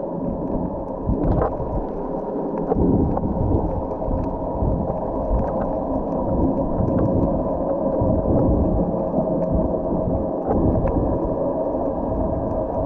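Muffled underwater noise from a submerged waterproof camera while snorkeling: a steady, dull rumble and wash of water with small clicks and bubbling, all the sound dull and low with almost nothing high.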